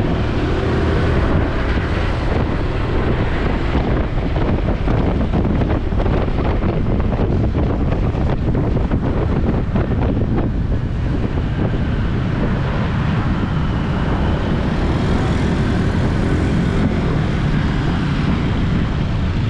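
Steady vehicle and road noise with wind buffeting the microphone.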